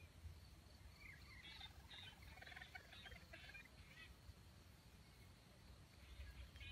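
Faint clucking of foraging wild junglefowl, a run of short calls from about one to four seconds in.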